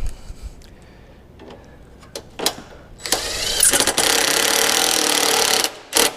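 A few short plastic clicks and knocks. About three seconds in, a power tool's motor whirs steadily for about two and a half seconds and then stops suddenly.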